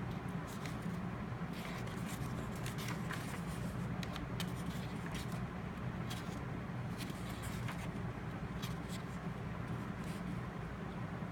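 Steady low background hum with scattered light rustles and clicks, as of something being handled.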